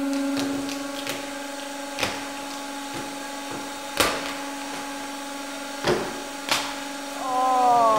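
A hydraulic press's steady hum while its ram crushes a metal shell, with four sharp cracks as the shell gives way. A falling squeal comes near the end.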